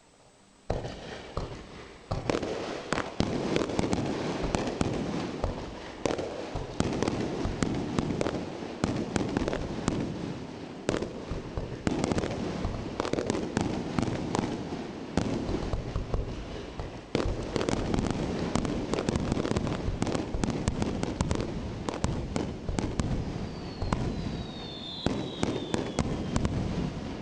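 Fireworks bursting at close range: a dense, continuous barrage of shell bursts with crackle between them, starting suddenly about a second in. A couple of falling whistles sound near the end.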